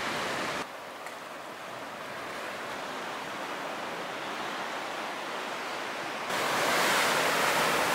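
Steady wash of ocean surf, with no distinct clicks or tones, getting abruptly quieter just under a second in and abruptly louder about six seconds in.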